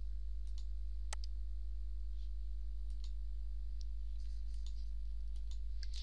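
Computer mouse clicks: one sharp click about a second in, then several fainter ones, over a steady low hum.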